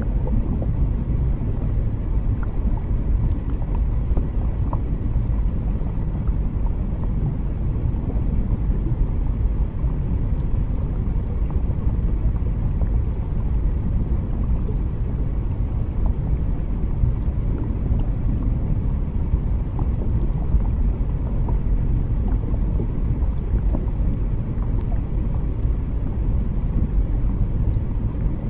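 Underwater rumble ambience: a steady, deep, even rumble with faint scattered small ticks above it.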